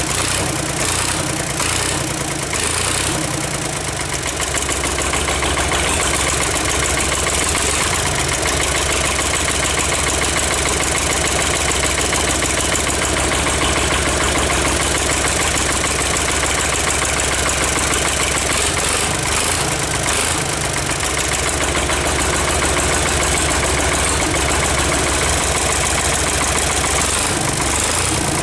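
Ford 4000 tractor's three-cylinder diesel engine, running on its own out of the tractor. It is uneven for the first few seconds, then settles into a steady idle.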